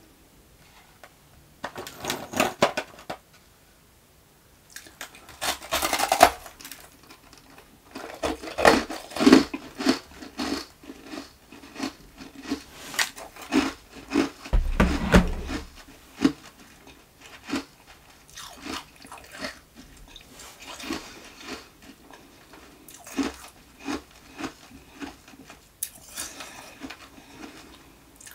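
Ice nuggets crunched and chewed close to the microphone: bouts of crisp, crackling crunches with short pauses between them.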